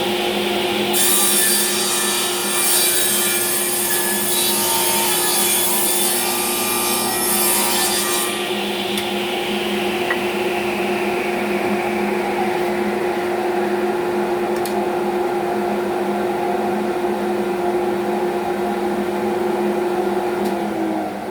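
Bandsaw running steadily, its blade cutting through a piece of wood for about seven seconds near the start, then running free with no cut until the motor is switched off and starts to wind down at the very end.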